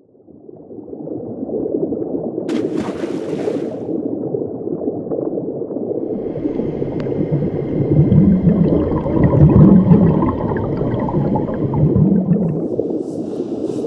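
Underwater ambience sound effect: a deep, dense rumble with gurgling water that fades in at the start and swells louder around the middle, with a brief hiss about three seconds in and faint high tones over it.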